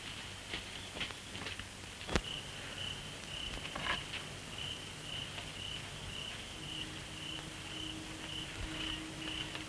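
An insect chirping in a steady, evenly pulsed rhythm, about two to three chirps a second, starting a couple of seconds in. It sits over the hiss of an old film soundtrack, with a few faint clicks in the first seconds.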